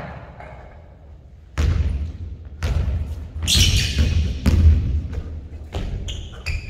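Basketball bouncing on a hardwood gym floor: a run of sharp thuds about a second apart, starting about a second and a half in, echoing in a large hall.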